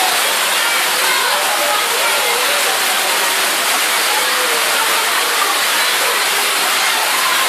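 Heavy tropical rain falling on a corrugated metal roof: a loud, steady hiss. Children's voices are faintly heard under it.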